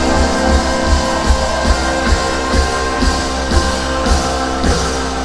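Live rock band playing a sustained groove: electric guitar over a drum kit, with a kick-drum beat about twice a second under held chords.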